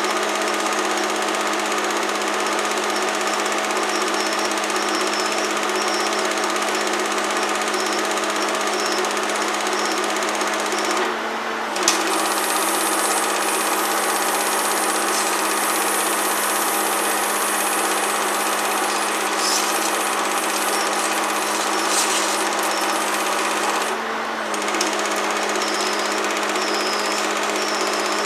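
Film projector running: a steady mechanical clatter over a constant hum, dipping briefly twice.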